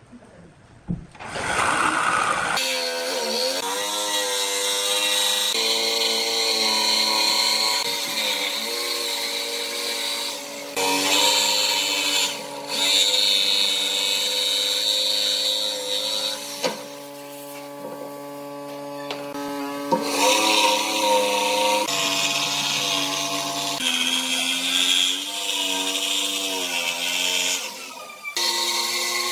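Dongcheng DMQ85 electric jigsaw cutting a curved line through a thick wooden board. It starts about two seconds in and runs with a steady motor whine, whose pitch dips and shifts as the blade takes load, over the rasp of the reciprocating blade.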